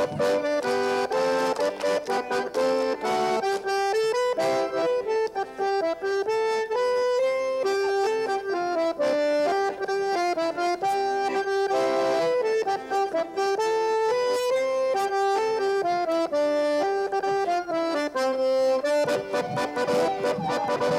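Accordion playing a lively, bouncing dance tune, a melody that steps up and down over sustained chords, for a Greenlandic couple dance.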